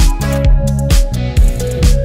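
Background music with a steady electronic drum beat, about two hits a second, over a bass line.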